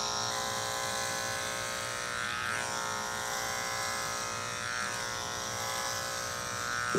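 Wahl KM10 electric dog clipper running with a steady, even hum as it skims through a thick dog coat.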